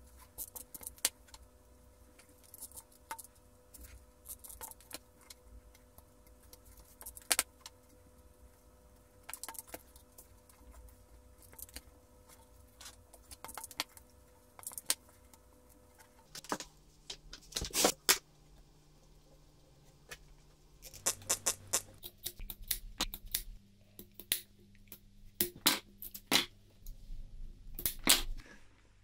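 Hands handling jute rope, a plastic sewer pipe and a hot glue gun: scattered small clicks, taps and rustles, coming thicker and louder in the second half.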